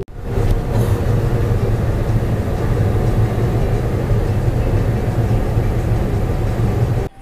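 Car driving at road speed, heard from inside the cabin: a steady rush of road and engine noise with a low hum. It cuts off abruptly near the end.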